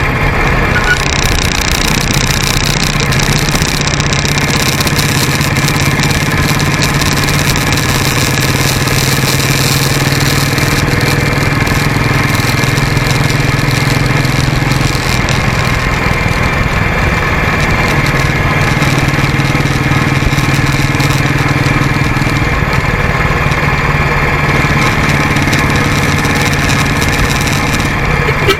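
Motorcycle engine running steadily on the move, its pitch shifting slightly a couple of times, over a constant rushing noise.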